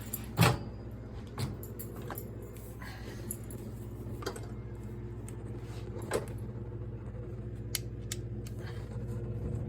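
A few scattered sharp clicks and light knocks from handling a microwave oven, such as its door and interior parts being opened and moved, the loudest about half a second in. A steady low electrical hum runs underneath.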